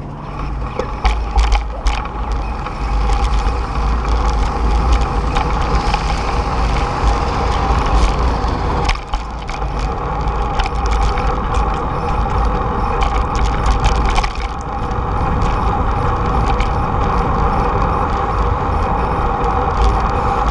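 Wind rumbling on the microphone of a camera riding along on a moving bicycle, with steady tyre-on-pavement noise and scattered clicks and rattles. The noise dips briefly twice, at about nine and fourteen seconds in.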